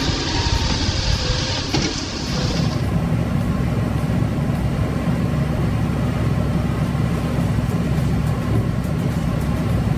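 Heavy machine's diesel engine running steadily with a low rumble; a brighter sound before it cuts off about two and a half seconds in.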